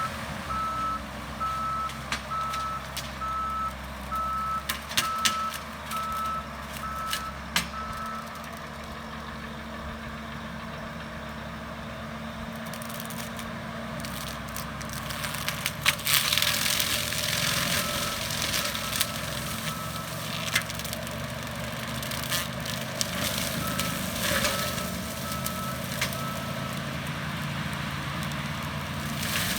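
John Deere 333G skid steer's diesel engine running under a forestry disc mulcher, its reversing alarm beeping in runs: steadily for the first eight seconds, then twice more in the second half. Scattered sharp cracks and clicks sound over the engine.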